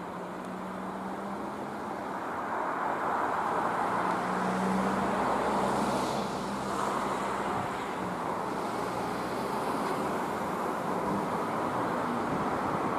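A vehicle running, its noise swelling over a few seconds and then staying steady, with a steady low hum for most of it.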